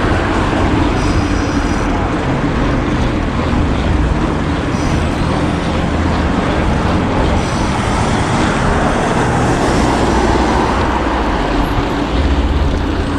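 City road traffic heard from a moving bicycle: a steady wash of passing cars and vehicle engines, with a low engine hum underneath.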